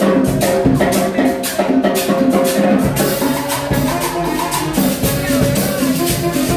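Live cumbia band playing, with a steady beat, shaken maracas and drums under pitched instrument lines.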